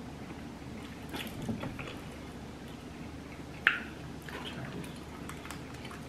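Close-miked chewing and wet mouth smacking while eating fried seafood, with soft scattered clicks and one sharper smack about three and a half seconds in.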